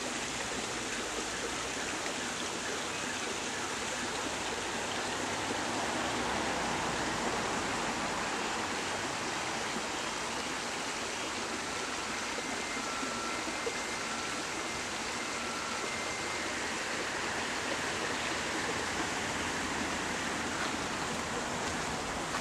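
A small creek running steadily, an even rush of flowing water. A few faint short high notes come and go about halfway through.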